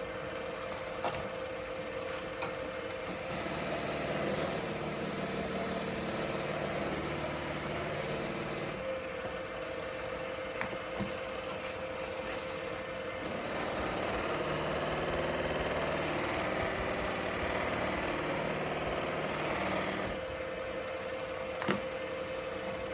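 Wood lathe running with a steady hum as it spins an acrylic crochet hook blank. In the second half, a louder rubbing noise lasts several seconds as polishing wax bars are pressed against the spinning acrylic, then drops away.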